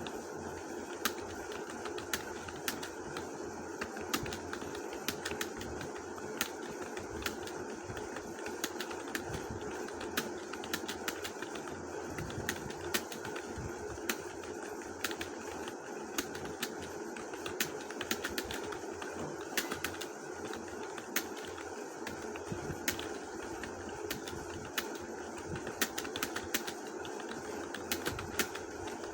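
Quick, irregular clicks of typing on a mobile phone's on-screen keyboard, several taps a second, over a steady background noise.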